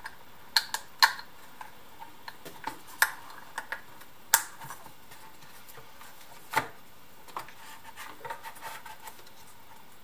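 Hands handling cables and parts inside an opened IKEA Eneby 20 speaker's plastic housing: irregular sharp plastic clicks and taps, with light rubbing and cable rustle between them.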